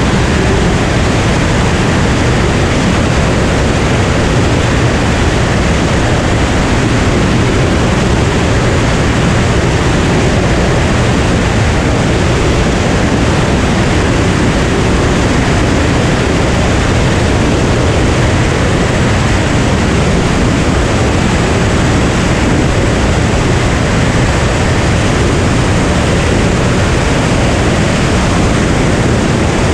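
Cirrus SR22 in cruise flight: a steady rush of wind on the microphone over the drone of its six-cylinder engine and propeller.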